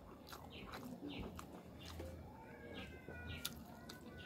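Wet mouth clicks and lip smacks of someone eating rice and fish in sauce by hand, as a scatter of short sharp clicks. From about halfway a faint, drawn-out wavering cry sits in the background.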